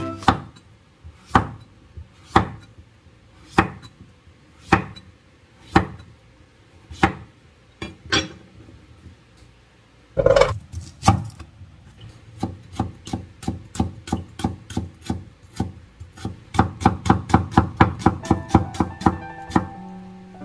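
Cleaver chopping on a wooden cutting board: slow single cuts about once a second, a louder knock about ten seconds in, then a quick run of chops, about five a second, mincing red onion.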